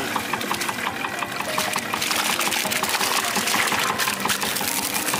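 Seawater pouring and dripping off a trap net as it is hauled up out of the water over the boat's side. Under it, a small engine runs steadily with a fast, even beat of about five ticks a second.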